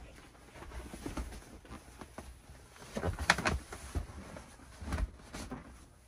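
Upholstered seat cushions being handled and set back into place on a dinette bench: a few soft thumps and rubs, the loudest about three seconds in.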